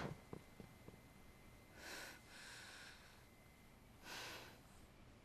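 Near silence, broken by two faint audible breaths, about two seconds in and again about four seconds in, as from a person breathing hard in a tense pause.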